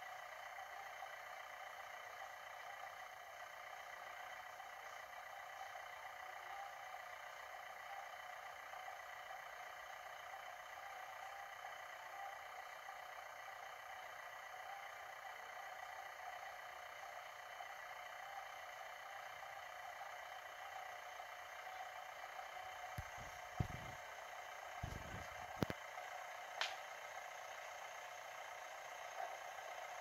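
Steady electronic hiss with faint whining tones, the noise of a camcorder's playback; a few soft knocks near the end.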